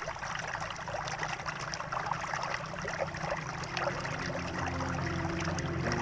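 Steady flowing, trickling water like a small stream. Soft music with long held low notes begins to come in near the end.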